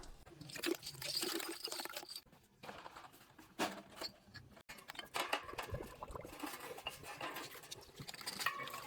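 Liquid sounds with scattered, irregular crackles and clicks, such as water being handled and fizzing in a soda-water production line.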